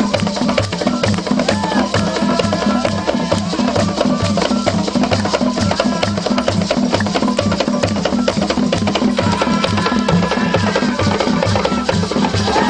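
Traditional Ugandan music: a steady, driving drum beat of about three strokes a second, with a melody above it.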